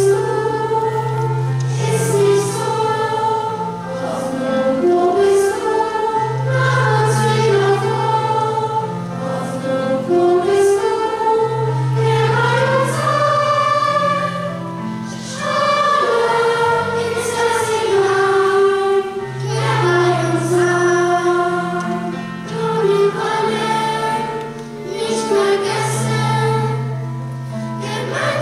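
Children's choir singing over steady low accompanying notes that shift every couple of seconds.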